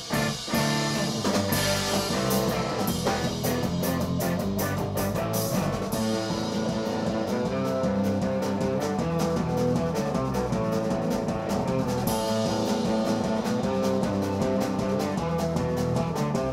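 Live folk-punk band playing an instrumental passage: electric guitar over a drum kit, with cymbals washing more heavily in the second half.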